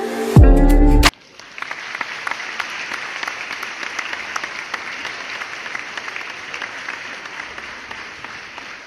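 Music ending in a falling low sweep that cuts off abruptly about a second in, then a crowd applauding, steady and slowly fading.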